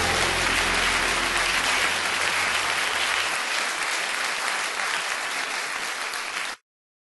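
Audience applause, with the last low held notes of a song dying away under it in the first few seconds. The applause stops abruptly just before the end.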